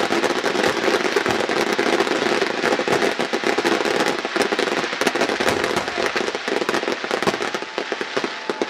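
Fireworks going off in a dense barrage of rapid crackling pops and bangs, easing slightly near the end.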